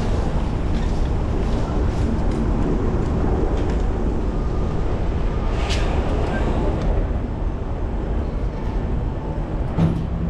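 Steady rumble of wind on the microphone and city street traffic, heard from a moving bicycle, with one brief sharp click about halfway through.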